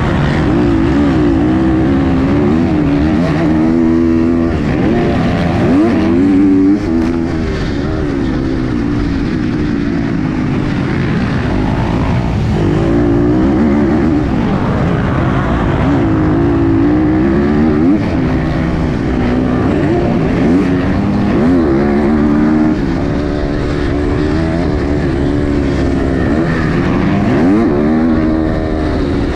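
KTM SX-F 250 four-stroke single-cylinder motocross engine heard from onboard the bike, its pitch climbing and dropping every couple of seconds as the throttle is opened and shut.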